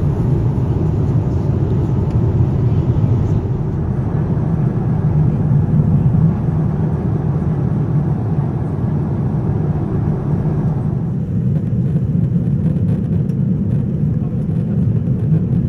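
Steady low rumble of a Boeing 787-9's passenger cabin in cruise flight, a dense roar of airflow and engine noise with no distinct tones. The higher hiss drops away about three and a half seconds in and again near eleven seconds.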